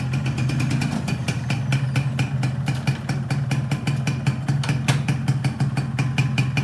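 Yamaha underbone motorcycle's engine idling steadily, a low hum with a fast, even ticking over it.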